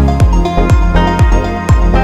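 Electronic background music with a steady kick drum about twice a second under sustained synth chords.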